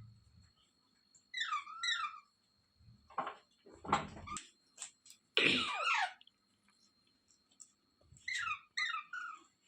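Rose-ringed (Indian ringneck) parakeet calling in short, high, screechy notes, paired near the start and again near the end. Several louder, harsher calls come in the middle, the loudest about five and a half seconds in.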